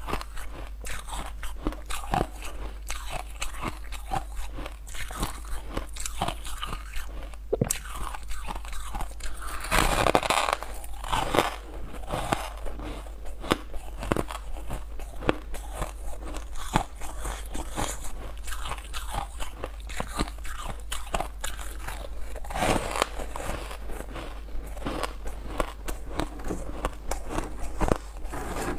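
Porous frozen ice blocks being bitten and chewed close to a clip-on microphone: a steady run of sharp crunches and crackles, with louder bites about a third of the way in and again about three quarters through.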